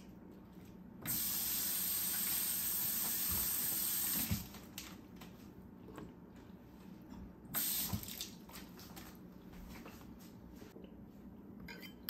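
Kitchen tap running in a steady stream for about three seconds, starting about a second in, then turned on again briefly near the middle, with a few soft knocks.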